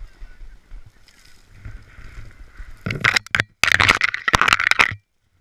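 Ice-glazed tree branches scraping and crackling against a snowboarder and his head-mounted camera: a loud burst of quick clattering clicks about three seconds in, over the low rumble of a snowboard sliding on snow. The sound cuts off suddenly near the end.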